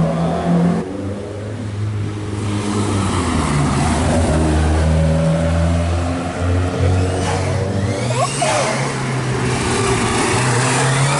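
Petrol engines of classic rally cars revving hard as the cars accelerate through a tight bend one after another, the engine note climbing and dropping with throttle and gear changes.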